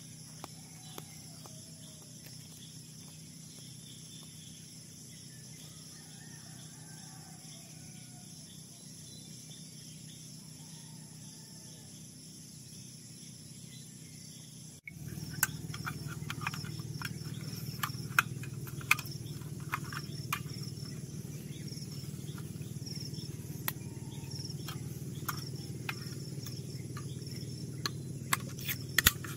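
Insects chirring steadily in a high, even drone. About halfway the sound changes suddenly to a louder low rumble with scattered sharp clicks, while the insects carry on.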